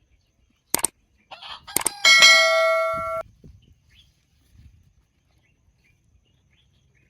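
A rooster crowing once, its last note held for about a second and then cut off, about two seconds in. A couple of short clicks come just before it.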